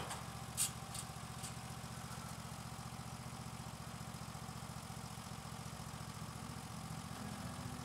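Logosol B1001 band sawmill running steadily with its head parked and not cutting, a fairly quiet even machine hum. A few light clicks in the first second and a half.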